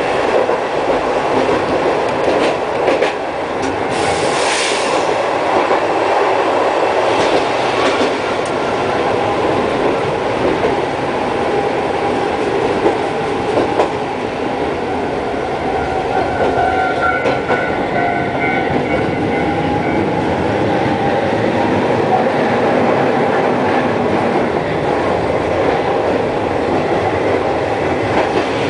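Hankai Tramway streetcar running on its rails, heard from on board: a steady rumble of wheels on track with occasional clicks. A brief hiss comes about four seconds in, and a faint ringing tone, like light wheel squeal, rises over the rumble about two-thirds of the way through.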